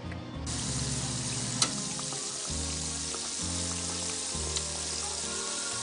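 Flour-coated pork chops sizzling steadily in hot oil in a cast iron skillet. The sizzle cuts in abruptly about half a second in, with a single sharp tick from the pan shortly after.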